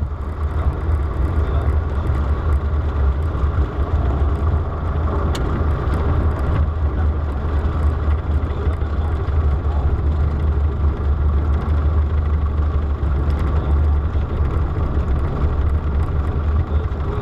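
Light aircraft's piston engine running steadily, a loud low drone heard from inside the cabin.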